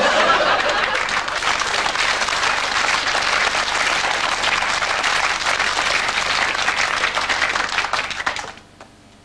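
Audience applauding, loud and steady, dying away about eight and a half seconds in.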